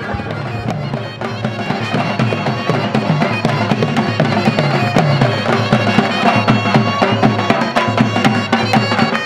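Traditional folk music played on dhol drums and a reed pipe (surnai): a fast, driving drum rhythm under a nasal, bagpipe-like melody. The drum strokes grow louder and more even after about five seconds.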